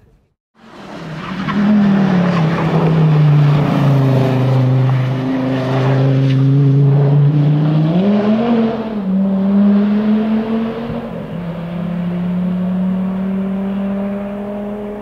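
A sports car's engine running hard. Its pitch slides down over a few seconds, rises sharply about eight seconds in, then holds steady.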